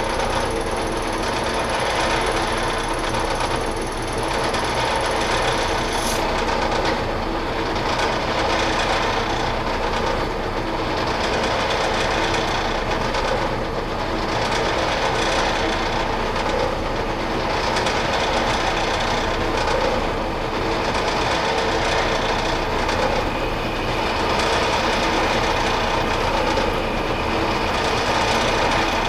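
Metal lathe running in back gear at about 100 RPM while a parting tool cuts off a metal bushing, a steady geared machine noise that swells slightly every couple of seconds. A faint high whine stops about six seconds in.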